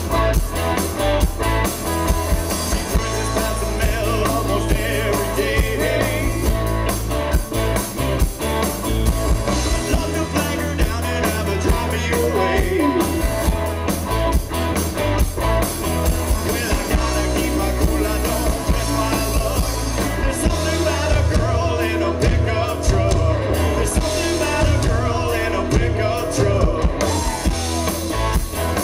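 Live country band playing a song at full volume: drum kit, bass and electric guitar, with singing.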